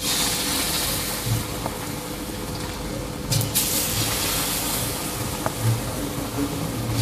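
Spoonfuls of breadfruit fritter batter dropped into hot oil in a wok, sizzling and bubbling as they deep-fry. The sizzle starts suddenly at once and swells again about three seconds in as a second spoonful goes in.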